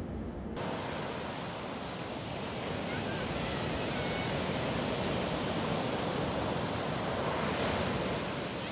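Big surf breaking on a sandy beach, a steady wash of waves that swells a little near the end. In the first half-second, a train's low rumble cuts off abruptly into the surf.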